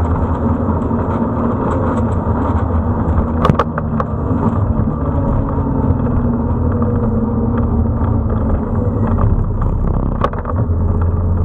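Motorcycle engine running at road speed, heard from a camera mounted on the bike over a steady rush of noise, its pitch sliding slowly down through the middle. Two sharp knocks, one a few seconds in and one near the end.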